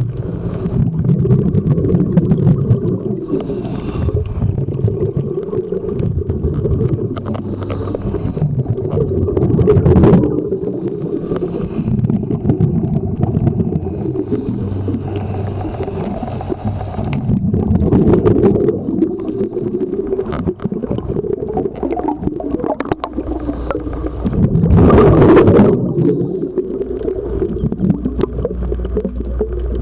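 Scuba diver's exhaled bubbles heard underwater: a steady low rumble with three louder bubbling surges, spaced about seven or eight seconds apart.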